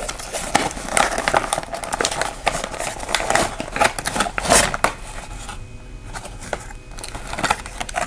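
A cardboard box being opened and a clear plastic packaging tray slid out of it and handled: rustling, crinkling and sharp little clicks, busiest for the first five seconds, then quieter with a few scattered clicks.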